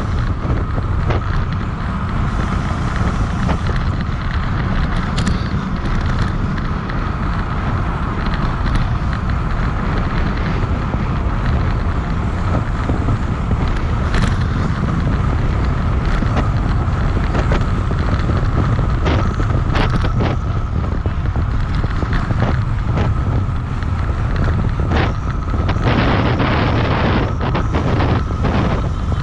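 Wind buffeting a road bike's handlebar-mounted action camera at race speed, about 26 to 29 mph, over a steady rumble of tyres on pavement. Scattered short clicks and knocks come from the bike, thickest near the end.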